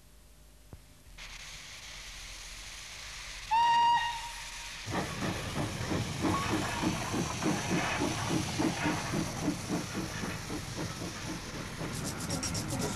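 Small steam railway engine, as a cartoon sound effect: a steady hiss of steam, a short whistle blast about three and a half seconds in, then steady chuffing of about three beats a second as the engine pulls away.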